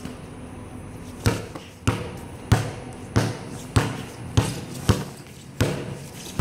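Basketball being dribbled on a concrete court: about eight sharp, even bounces, nearly two a second, starting a little over a second in.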